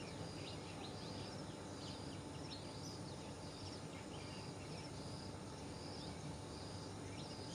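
Faint outdoor ambience: small birds chirping over and over, short high calls with quick downward strokes, over a low steady background rumble.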